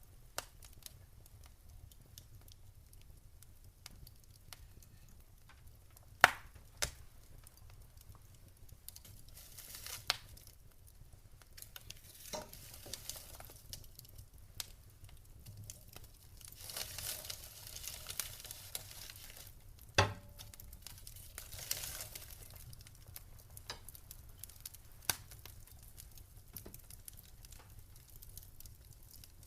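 Wood fire crackling, with scattered small pops and two loud sharp snaps, about six seconds in and near the twenty-second mark, over a soft hiss and a steady low hum.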